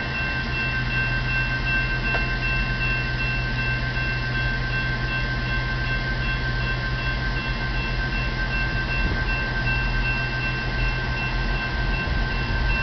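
Railroad crossing bell ringing in a steady repeating rhythm while the gates are down, signalling an approaching train, over a low steady rumble.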